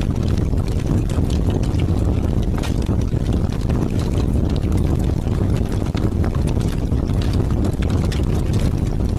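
Strong wind blowing with a steady low rumble, heavy rain pattering through it as scattered drop hits.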